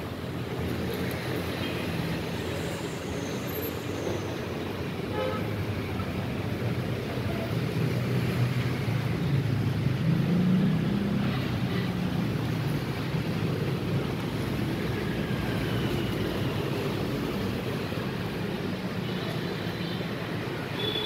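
Steady road traffic noise, the engines of passing vehicles running by as a continuous rumble that swells for a few seconds around the middle.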